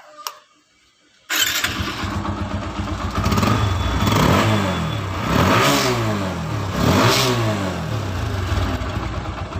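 TVS Apache 160 (BS3) single-cylinder four-stroke engine on its stock exhaust starting up about a second in and idling. It is then revved three times, each rev rising and falling back, before settling to idle.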